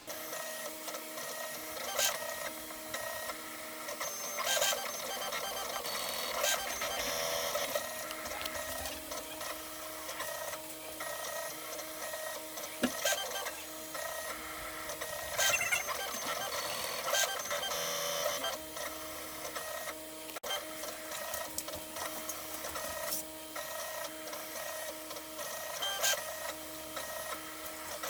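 3D printer printing, its stepper motors whining in several tones that shift and cut in and out as the head moves, with scattered sharp ticks.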